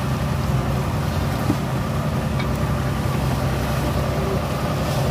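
Fishing boat's inboard engine running steadily underway, a low drone, with a few faint knocks from fish and crates being handled on deck.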